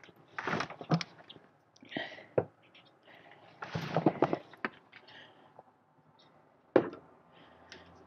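Metal hydraulic quick couplers clinking and knocking as they are taken from a plastic bucket and set down on a table, in several short, irregular clatters. The sharpest knock comes near the end.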